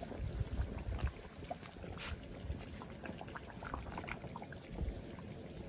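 Liquid pouring and sloshing, with small irregular splashes and light knocks.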